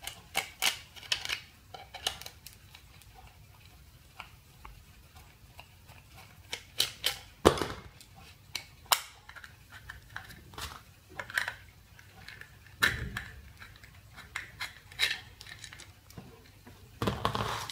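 A small screwdriver prying apart the clip-together plastic halves of an ultrasonic parking sensor's head: irregular clicks, scrapes and snaps of hard plastic, the loudest about halfway through.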